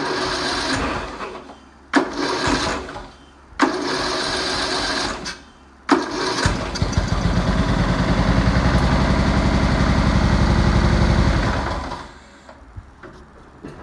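Rebuilt 12.5 hp flathead mower engine being cranked on its electric starter in three short bursts, then catching about six seconds in and running unevenly for several seconds before dying away near the end, its idle set too low to keep it running.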